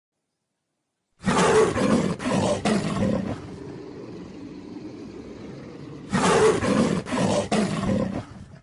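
Dinosaur roar sound effect for a Ceratosaurus: two loud roars about five seconds apart, each broken into three pulses, with a quieter low sound carrying on between them.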